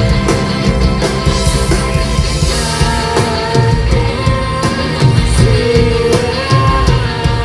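Live rock band playing loudly through a PA: electric guitars and a steady drum beat, with a singer's voice over them.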